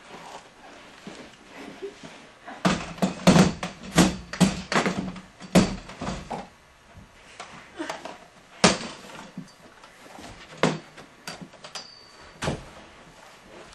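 A series of knocks and thumps, like doors banging or bodies and objects bumping: a quick run of them about three seconds in, then single knocks every couple of seconds.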